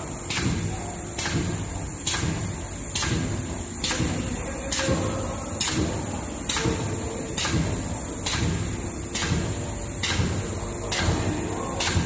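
Popcorn microwave-bag aluminium foil mounting machine running, with a sharp clack repeating evenly a little faster than once a second as it cycles, over a steady high whine.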